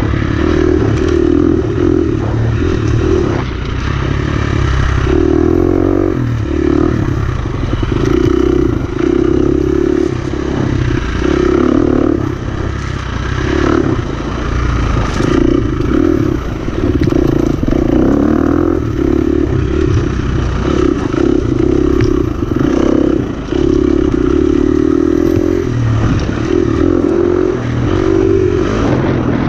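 Dirt bike engine revving up and dropping back again and again as the throttle is opened and closed, ridden fast along a muddy trail, with the clatter of the bike over rough ground.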